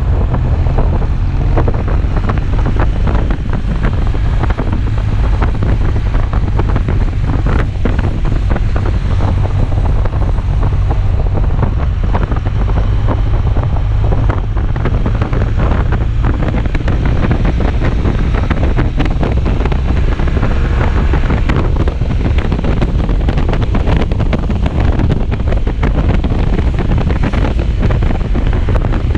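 Wind buffeting the microphone of a moving motorcycle, a loud steady rumble with the ride's road and engine noise beneath it.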